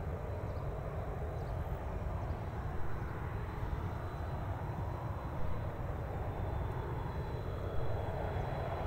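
Boeing 757-200 jet engines on final approach and flare to landing, a steady jet rumble, with a faint steady high whine through much of it.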